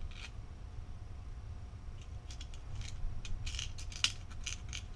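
Small metal screws clicking and rattling as they are picked out of a plastic parts box and set down on the work mat: a quick run of light clicks in the second half, the sharpest about four seconds in.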